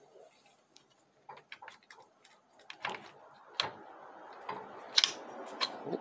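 Plastic Mechatronic plate of a ZF6HP28 automatic transmission being handled and lifted off its aluminium valve body: scattered light plastic clicks and ticks, then a few sharper knocks from about three seconds in.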